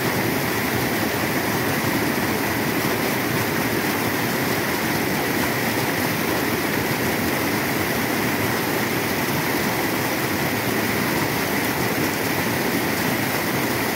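Water rushing steadily over the rocks of a reservoir spillway as foaming whitewater; the reservoir is full and overflowing, so the spillway runs strongly.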